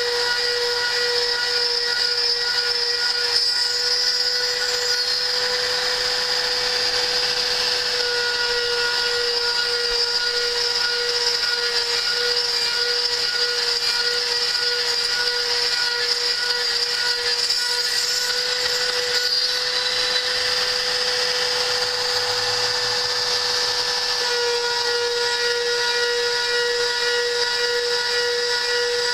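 CNC router spindle milling 5 mm aluminium sheet: a steady high-pitched whine with the hiss of the cutter working through the metal. The whine shifts slightly in pitch twice, about 8 and 24 seconds in.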